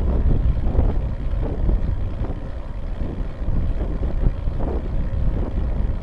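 Wind buffeting the microphone of a bicycle-mounted camera while riding: a steady low rumble with irregular gusts.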